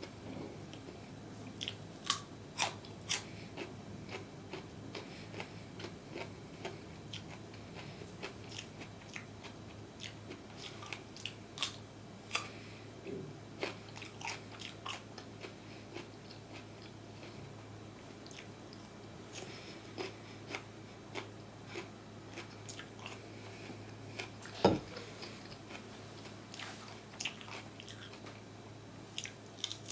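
Close-miked eating of crunchy food: a person biting and chewing with irregular sharp crunches and wet mouth clicks, one louder knock about three-quarters of the way through.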